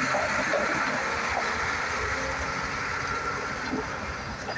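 Mack Pinnacle semi tractor pulling a trailer past, diesel engine running with tyre noise on gravel, slowly fading as it moves away.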